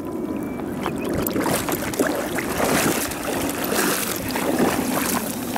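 Water sloshing and splashing irregularly, with wind buffeting the microphone.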